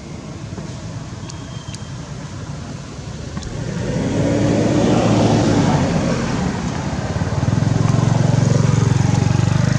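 Motor vehicle engines passing nearby. One swells about four seconds in with a pitch that bends and fades, and a lower, steadier engine grows loud near the end.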